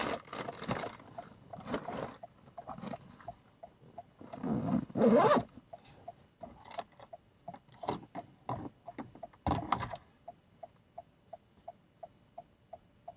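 Paper takeout bag and insulated delivery bag rustling as the food is packed, with a zipper pulled closed about four to five seconds in, the loudest sound. After that, a steady light ticking about two to three times a second.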